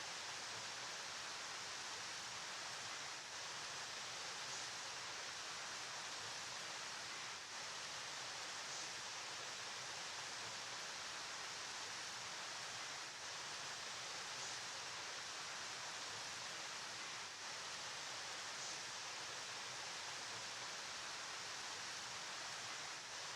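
River water flowing: a steady, even rush of water with a bright hiss in the upper range, dipping slightly every four to six seconds.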